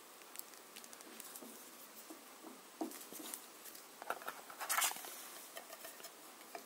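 Faint clicks and rubbing of small plastic figure parts being handled and fitted together, with a louder scrape about four and a half seconds in.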